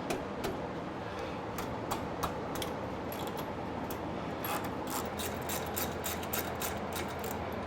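Ratchet wrench clicking while undoing the fuel tank bolts of a motorcycle, a run of quick clicks that is densest from the middle to near the end.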